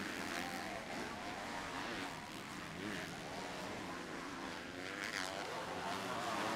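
Several 250cc four-stroke motocross bikes racing, their engines revving up and down in overlapping, wavering pitches as riders work the throttles and shift gears.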